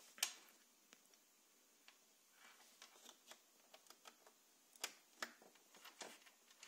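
Faint clicks and taps of the Dell WD15 dock's USB-C cable plug being handled and pushed into a laptop's USB-C port. There is a sharp click about a quarter second in, then scattered light ticks, and a few clearer clicks near the end.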